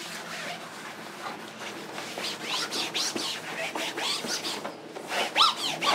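Microfiber towel wiping a vinyl boat seat by hand, irregular rubbing strokes with short squeaks of cloth and glove on the vinyl. The loudest squeak comes near the end.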